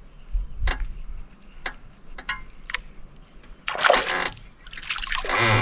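Hooked bream splashing at the water surface beside the boat as it is reeled in, in two loud bursts about four and five seconds in. A few light clicks come before the splashing.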